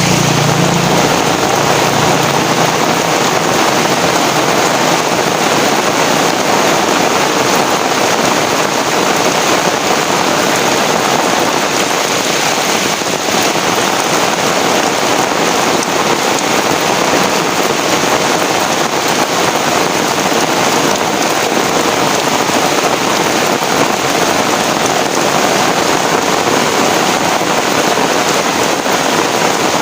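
Heavy rain pouring steadily in a dense, even hiss. A low hum underneath fades out in the first two seconds.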